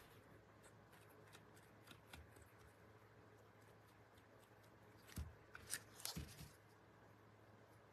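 Near silence, with a few faint clicks and light knocks as small painted wooden cutout pieces are handled on a tabletop, mostly in a short cluster about five to six and a half seconds in.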